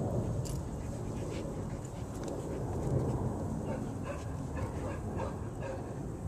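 A dog whining and yipping in short bursts, mostly in the second half, as it snaps at the spray of a garden hose sprinkler, over a steady low rumble.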